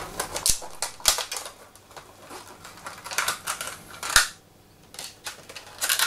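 Clear plastic packaging bag being crinkled and pulled open by hand to unwrap a miniature tank figure, in irregular crackles, loudest about four seconds in and again near the end.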